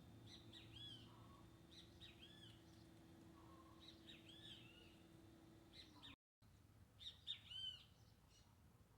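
Faint chirping of small songbirds: repeated short, arched notes, loudest near the end. Under the first two-thirds runs a faint steady hum, which stops at a brief dropout about six seconds in.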